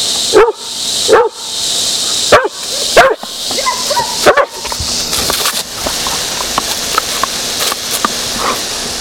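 Rough Collie barking, about five sharp barks in the first four and a half seconds, over the steady hiss of a spraying garden hose. After that only the hose spray continues, with small splashes and clicks.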